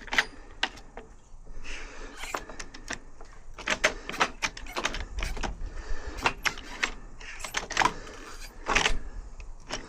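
Irregular metallic clicks and knocks of small parts of a UPVC door lock gearbox being handled and worked on.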